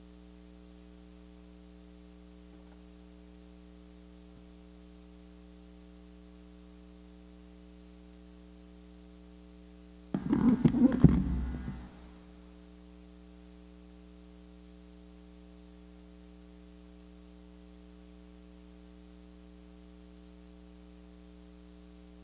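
Steady electrical mains hum, a low buzz with a ladder of overtones. About ten seconds in, a loud burst of bumps and rustling lasts about two seconds.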